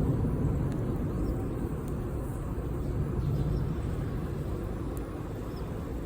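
Campfire burning outdoors, a few faint pops and crackles over a steady low rumble.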